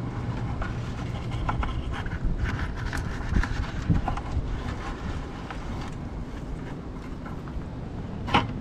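Low rumble of wind on the microphone, with scattered light clicks and scrapes as small crabs are tipped out of a white plastic bucket, and a sharper click near the end.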